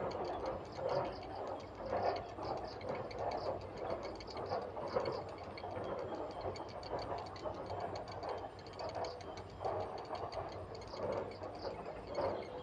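Grey heron nestlings begging at the nest, a rapid repeated ticking chatter that keeps going in uneven pulses.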